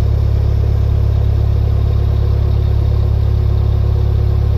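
Narrowboat engine running steadily under way, a continuous low drone.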